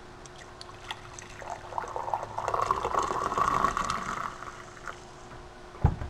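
Coffee pouring from a French press into a ceramic mug, building up about a second and a half in and trailing off after about four seconds. A short thump near the end.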